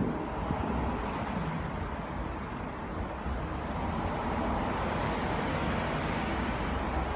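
Steady outdoor city background noise, a rumble like distant road traffic, with no distinct bangs.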